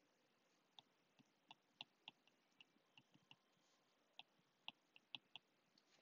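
Near silence broken by about a dozen faint, sharp clicks at irregular intervals: a stylus tapping on a drawing tablet while handwriting.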